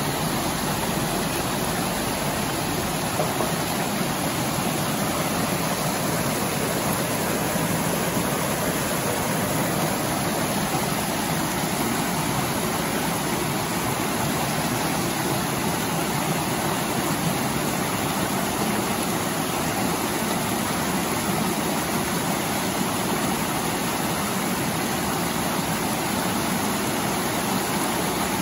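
Steady rush of flowing river water: an even, unbroken noise.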